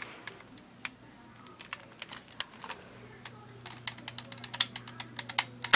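Light plastic clicks and rattles of a cheap foam dart blaster being handled and shot, irregular at first and coming thicker after about three seconds, with one loudest, sharper snap near the end.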